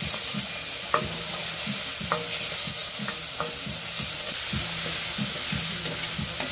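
Red onion and garlic sizzling in a stainless steel saucepan, stirred with a wooden spoon that scrapes and knocks against the pan about two or three times a second, while bacon and green pepper fry in a cast iron skillet; near the end the spoon moves to the skillet.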